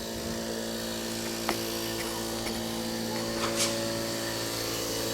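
A steady mechanical hum with several steady pitches, like an engine or motor running. It is broken by a faint click about a second and a half in and a short scrape about three and a half seconds in.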